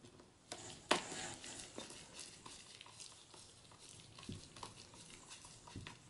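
Small screwdriver turning a screw that holds the solid state drive bracket in a laptop's drive bay: faint clicks and scraping of metal on metal, with one sharper click about a second in.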